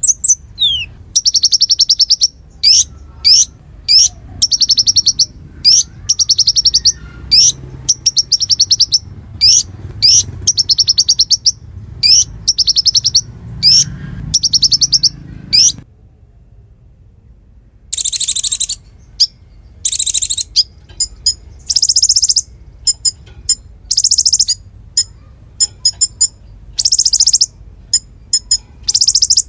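Konin songbird singing hard in 'nembak' style: quick phrases of sharp, high, falling whistled notes and buzzy trills, one after another, with a break of about two seconds just past the middle.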